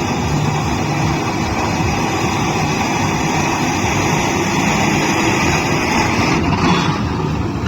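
Diesel engine of a JCB 3DX backhoe loader running steadily while it works, its sound shifting briefly about six and a half seconds in.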